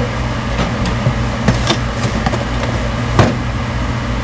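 A steady machine hum, like an extractor fan running, with a few light clinks and knocks of utensils on glassware, the loudest about three seconds in.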